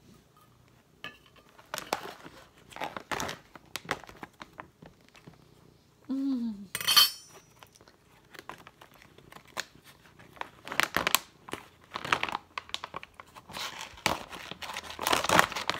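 Crinkling of a plastic cat-food pouch, with a spoon clinking and scraping against a stainless steel bowl as food is served; one sharp metallic clink rings out about seven seconds in.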